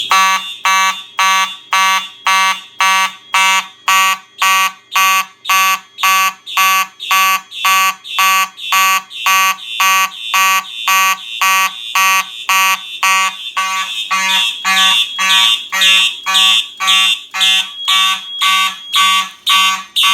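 Fire alarm horns sounding in march time: a loud buzzing horn tone pulsing about twice a second, a little slower than standard march time because the panel's relay only gives about 110 beats per minute. A shriller upper tone grows louder past the middle, and the alarm cuts off at the very end.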